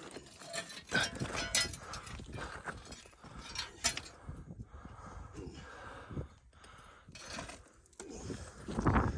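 Footsteps scrambling over loose rocky ground: irregular crunches and clacks of shifting stones, louder near the end.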